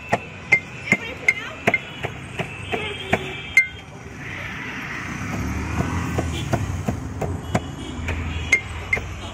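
Quick, sharp clinking taps with a short metallic ring, two or three a second, as a street-food vendor works his utensils and bottle over a tray of puris. The taps pause for a few seconds under a low rumbling background noise, then return near the end.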